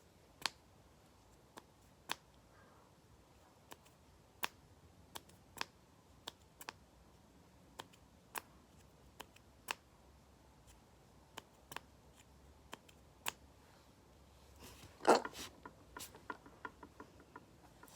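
Small glass perfume bottles and their caps being handled: scattered sharp clicks and taps at irregular intervals, with a louder clatter about fifteen seconds in.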